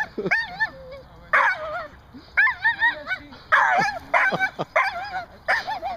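Herding dog whining and yipping impatiently in a string of about seven short, wavering, high-pitched cries, roughly one a second, a warbling, monkey-like sound.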